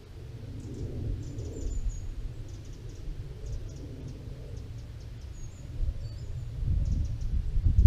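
Outdoor ambience: small birds chirping faintly in short high notes over a low rumble of wind on the microphone, which grows louder and gustier near the end.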